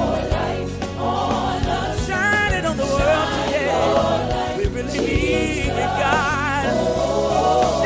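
Gospel choir and worship band performing, wordless sung lines with vibrato over keyboard, bass and a steady drum beat.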